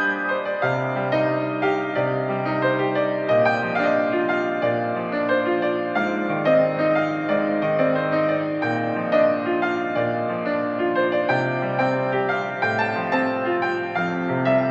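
Background music led by piano: sustained notes moving in a slow, gentle melody.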